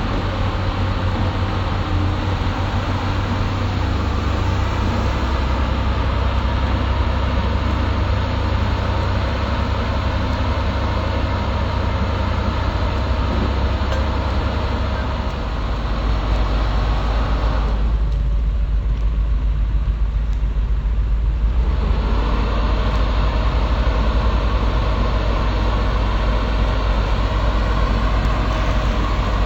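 Excavator's diesel engine running continuously with a low drone, its engine note shifting twice. The mechanical clatter above it thins out briefly past the middle.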